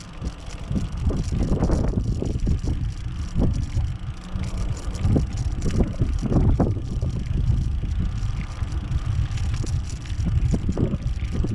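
Wind buffeting a small camera's microphone: a continuous low rumble that swells and drops in uneven gusts.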